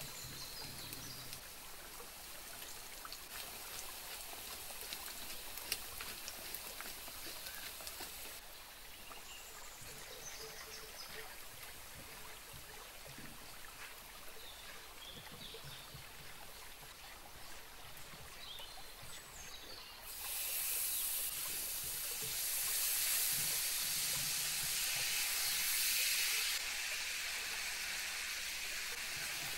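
Minced garlic sizzling in oil in a frying pan, a steady hiss with the odd light click of a spatula. About twenty seconds in the sizzle turns suddenly louder and hissier, then drops back slightly a few seconds before the end.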